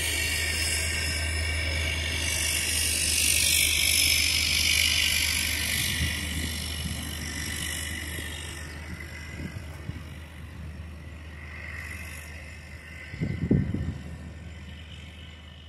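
Cessna Caravan's Pratt & Whitney PT6A turboprop running as the plane taxis past, a steady low propeller drone under a high turbine whine. It grows fainter as the aircraft moves away. About 13 seconds in there is a brief low rumble.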